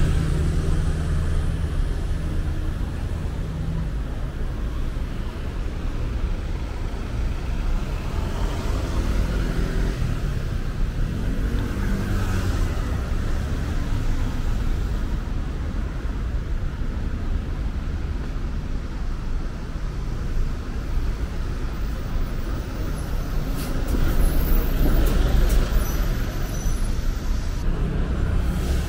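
City-street road traffic: vehicle engines running and passing in a steady low rumble, a little louder for a few seconds near the end.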